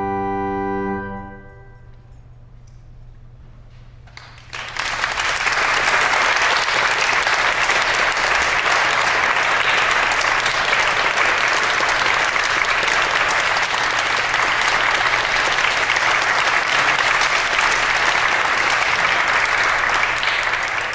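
Audience applause after a pipe organ's final chord. The chord is held for about a second, then releases and dies away in the church's reverberation. After a few seconds of quiet the audience breaks into steady applause, which starts to fade near the end.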